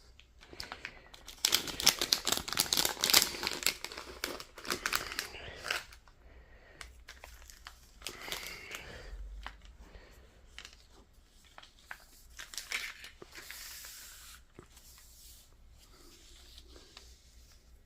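Small plastic bag crinkling as it is handled to get screws out, loudest for a few seconds near the start, then lighter rustling and small clicks.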